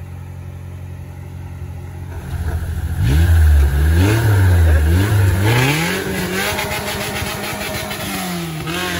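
An off-road 4x4's engine, quieter at first, is revved up and down several times from about two seconds in, then runs on at a steadier, lower level with smaller rises and falls.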